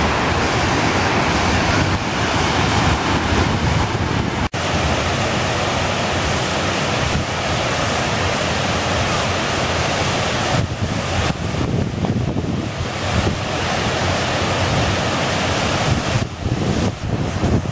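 Steady rush of water pouring over a dam spillway and tumbling through the rocks below, with wind buffeting the microphone, more unevenly near the end. The sound cuts out for an instant about four and a half seconds in.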